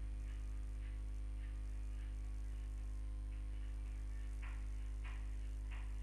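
Steady low electrical hum, mains hum picked up by the recording, with a few faint brief soft sounds near the end.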